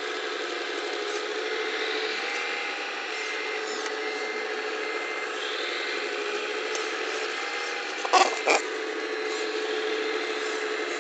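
Electric-driven hydraulic pump of a Wedico 1:14.5 scale CAT 345D LME RC excavator whining steadily while the bucket digs soil. Two sharp knocks come about eight seconds in.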